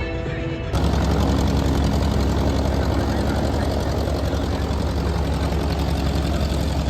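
Propeller aircraft engine running with a steady, deep drone. It cuts in abruptly less than a second in, replacing a moment of music.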